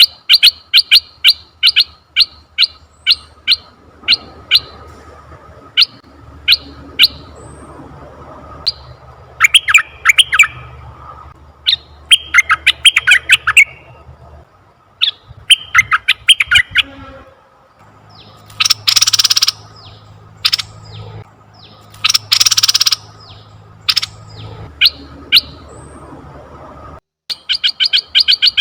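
Red-eyed bulbul calling: runs of short, sharp chirps and bursts of quick trills, with two loud, harsh calls about a second long a little past the middle.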